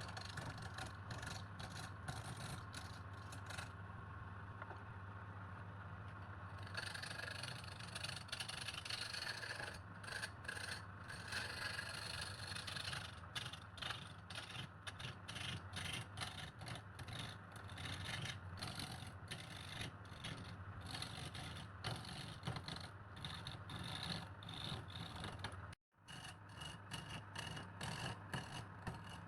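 Wood lathe running with a steady motor hum while a turning tool scrapes against the spinning wood in uneven strokes. The sound cuts out for a split second near the end.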